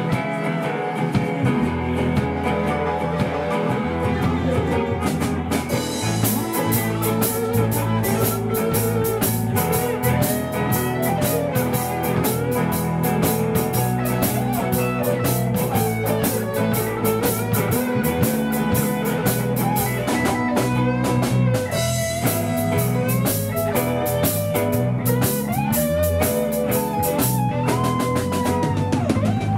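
Live rock band playing an instrumental passage: Fender electric guitar and a second guitar over bass, with the drum kit and cymbals coming in about five seconds in and a brief break about two-thirds of the way through.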